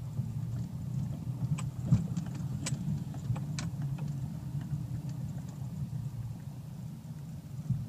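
Diesel 4x4's engine running low and steady at crawling speed on a rocky dirt track, heard from inside the cabin, with a handful of sharp knocks and rattles as the car jolts over stones. The loudest knock comes about two seconds in.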